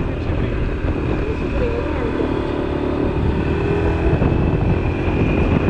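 Scooter engine running steadily under way, with wind rushing over the microphone.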